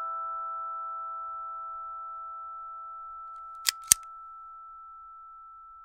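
A bell-like mallet chime note fading slowly away, cut across about two-thirds of the way through by two sharp clicks a quarter second apart: a mouse-click sound effect.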